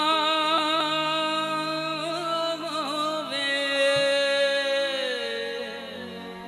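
Male vocalist holding a long, drawn-out note with vibrato in a Punjabi Sufi devotional kafi, over steady musical accompaniment. The note slides down and fades about five seconds in.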